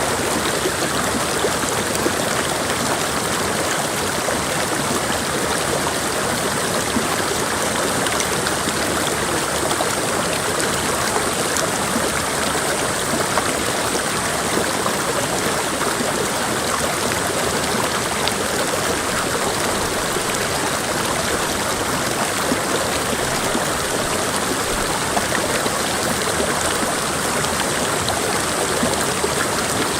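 Creek water flowing steadily, an even, unbroken rush of running water.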